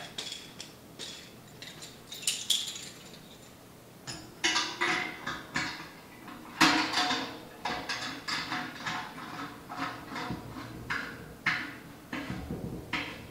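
Stainless steel fittings clinking and clacking irregularly as they are fitted and tightened on the top lid of an Ss Brewtech stainless conical Unitank. The loudest clank comes about six and a half seconds in.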